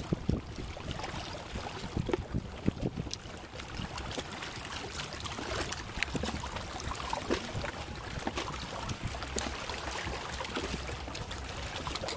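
Sea water washing and splashing among concrete breakwater cubes, with scattered short sharp slaps and knocks.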